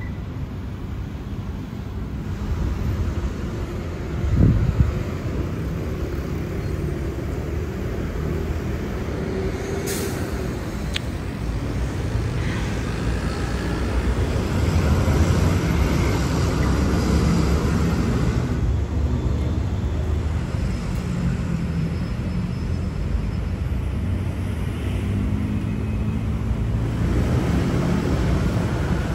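City street traffic: a steady rumble of passing cars, buses and trucks, with a brief louder swell about four and a half seconds in.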